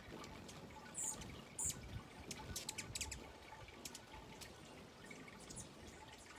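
Hummingbird giving two short, high chip notes about a second in, followed by a quick run of sharp high ticks.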